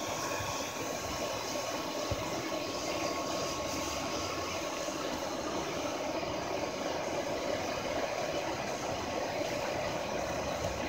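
Hair dryer running steadily as a blower, forcing air through a steel pipe into a bucket charcoal furnace: a continuous rush of air with a thin steady whine.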